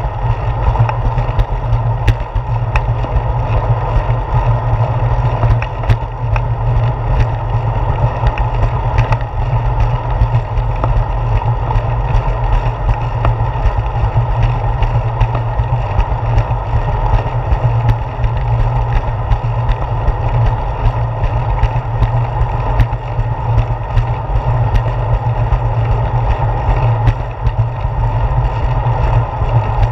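Steady low rumble of a bicycle riding on a concrete path, heard through a handlebar-mounted GoPro Hero 4: road vibration and wind on the camera, with scattered light clicks.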